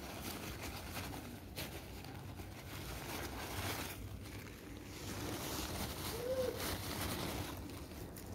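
Crumpled packing paper rustling and crinkling as hands dig through it inside a cardboard box, louder for a moment just past the middle.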